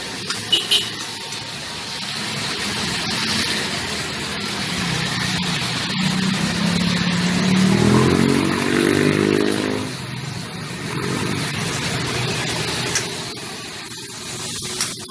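A motorcycle passes on the street, its engine climbing in pitch about five seconds in, loudest around eight seconds and fading out by ten. Under it runs a steady hiss of street and cooking noise, with a few sharp clinks near the start.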